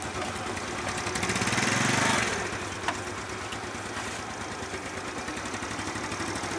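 Small motor scooter engines idling steadily, with one revving up and falling back about one to two seconds in.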